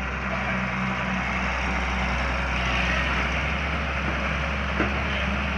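Heavy diesel engine running steadily with a low, even hum, and a single short knock about five seconds in.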